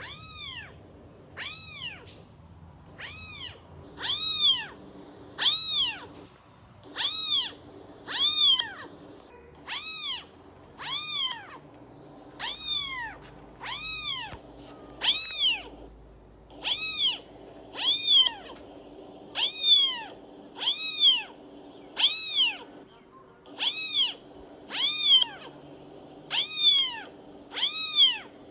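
A kitten meowing over and over: short, high meows that rise and fall in pitch, repeated steadily about once every second or so.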